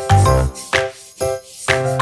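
Background music with a steady beat: pitched notes and a low bass thump about twice a second, with light jingling percussion.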